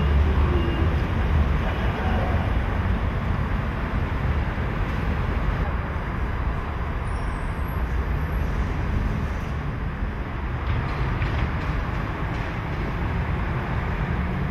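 Hamburg U-Bahn DT 2 electric train running on the elevated track, a steady low rumble with rail noise, loudest at the start.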